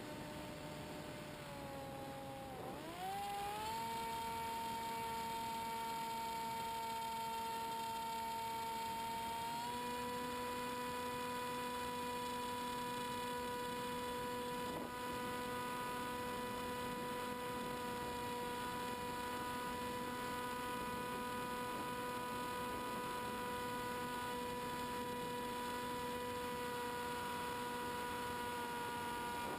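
Multiplex EasyStar model plane's electric motor and propeller whining steadily, heard from the onboard camera. The pitch sags briefly about two to three seconds in as the throttle is eased, climbs back, steps up slightly near ten seconds, then holds steady, dropping a little at the very end.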